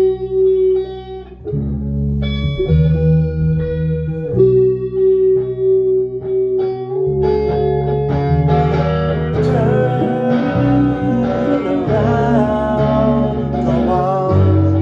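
Instrumental break in a song: guitar playing long held notes over a steady bass. The arrangement grows fuller and brighter about halfway through.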